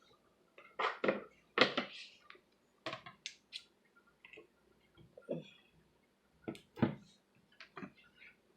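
Plastic slime jar being handled and opened: a string of irregular clicks, taps and knocks, the loudest about one and a half seconds in and again near seven seconds.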